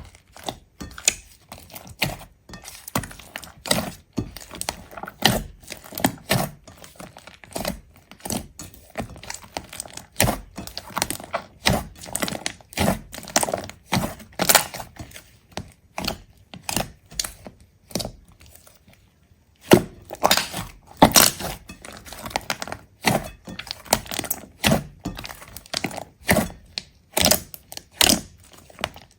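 A rapid, irregular series of sharp cracks and crunches, with a pause of about two seconds a little past the middle.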